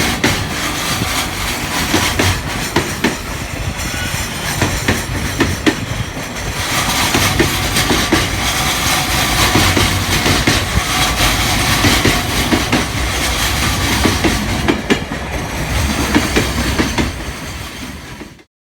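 Freight train wagons rolling past, their wheels clicking irregularly over rail joints. The sound eases slightly near the end, then cuts off abruptly.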